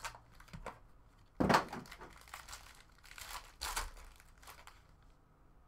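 Crinkling of a shiny foil trading-card pack wrapper being handled and opened by hand, in a few short bursts, the loudest about a second and a half in and another cluster past the middle.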